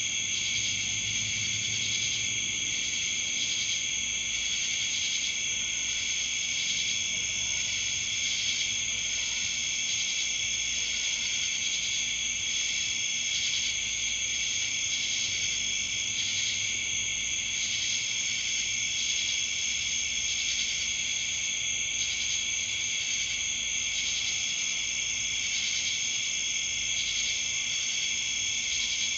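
Crickets chirping in a steady, high-pitched night chorus, with a faster pulsing trill layered over it.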